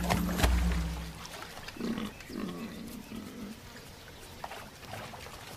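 Music ends about a second in, then a giant forest hog gives a short run of low grunts, with faint outdoor noise afterwards.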